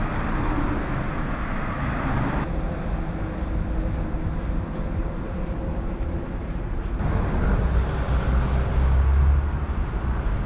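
Road traffic: cars passing on a city street, a steady hum and hiss of engines and tyres, with a deeper rumble of a passing vehicle near the end. The traffic noise changes abruptly twice.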